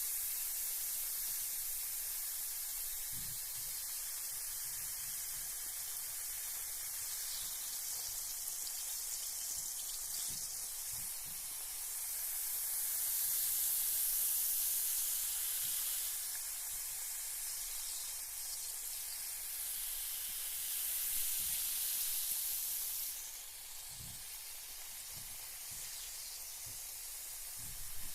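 Carbonated bath bomb fizzing in bath water: a steady high hiss of bubbles that swells twice in the middle and drops a little near the end.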